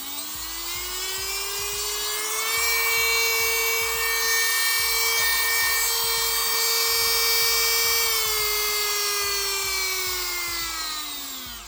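Brushless rotary tool motor running free with a high whine: the pitch climbs over the first two seconds or so as it speeds up, holds steady at top speed, then falls away as it slows and stops near the end.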